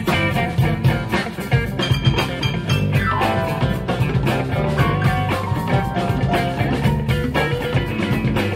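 Live electric blues band playing: electric guitars, bass and drum kit, with one note sliding down in pitch about three seconds in.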